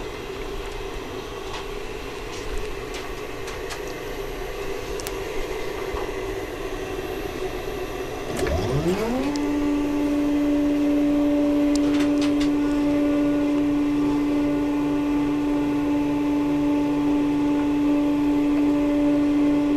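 Stepper motor of a chain-and-sprocket CNC-converted X2 mini mill driving an axis as the machine homes. A steady hum with a few light clicks gives way, a little past eight seconds in, to a motor whine that rises in pitch over about a second and then holds steady.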